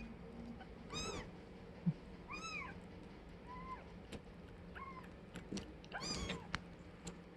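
Kitten mewing: about five short, high-pitched mews spread over several seconds, with a few faint clicks between them.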